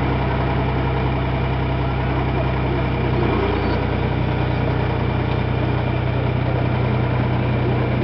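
John Deere 350C crawler dozer's diesel engine running steadily at low revs while the machine is driven.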